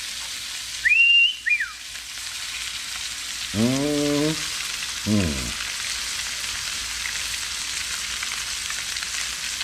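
Seasoned crappie fillets frying in melted butter in a hot cast iron skillet: a steady sizzle throughout as more fillets are laid in. About a second in comes a short, loud whistle that rises and falls, and around four and five seconds there are two brief voice sounds.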